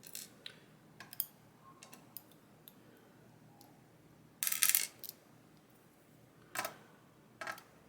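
Small metal pin tumblers from a disassembled U-Shin Showa NX lock dropping out onto a hard surface with scattered light clicks. There is a short rattle about halfway through and two more clicks near the end.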